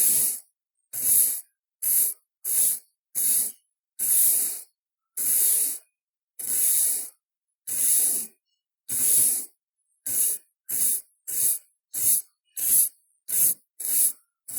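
A broom sweeping in separate swishing strokes, about seventeen of them with dead silence between. The strokes are long and come about a second apart at first, then turn shorter and quicker, about two a second, from roughly ten seconds in.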